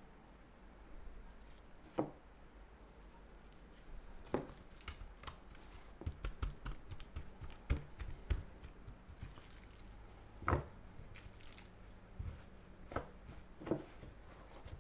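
Gloved hands patting dry rub into raw pork spare ribs and turning the slabs over on a wooden cutting board: scattered soft pats, slaps and knocks, with a cluster of low thuds around seven seconds in and the loudest knock about ten seconds in.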